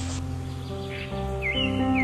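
Background music with sustained instrumental tones. Near the end a bird gives a couple of short swooping chirps.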